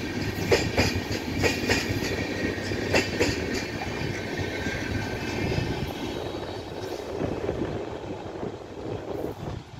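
Indian Railways express train's LHB coaches rolling past, wheels clattering over rail joints in clusters of sharp clicks over a steady rumble. The noise fades near the end as the last coach passes.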